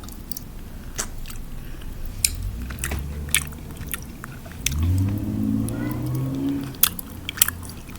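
Close-miked chewing of chewy Korean rice cakes in spicy sauce, with scattered wet mouth clicks. A low, closed-mouth hum comes in twice, around two and five seconds in.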